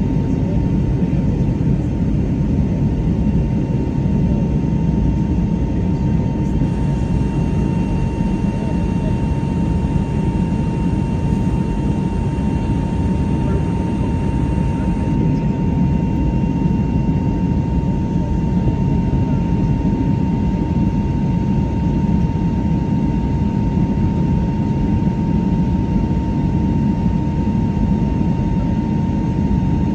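Jet airliner engines running: a steady low rumble with a constant whine over it, holding level throughout.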